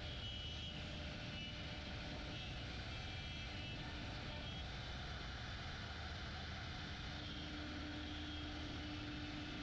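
AVID CNC router running steadily, a continuous machine noise with a faint hum and a high whine that come and go.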